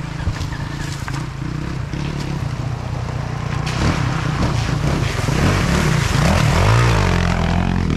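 Dirt bike engine running at low revs, then revving up and down and growing louder from about four seconds in.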